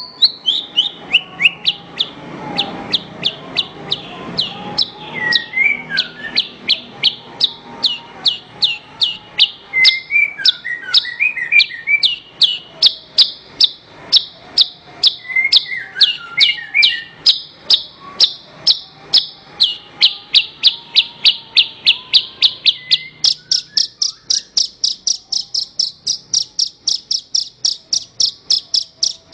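Javan bush lark (branjangan) singing: a long run of short, sharp, high chirps repeated about three times a second, mixed with lower twittering phrases, quickening into a faster, even trill near the end.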